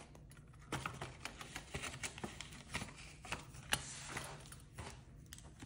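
Paper banknotes and cash envelopes being handled: a quick run of crisp rustles and small ticks, starting just under a second in.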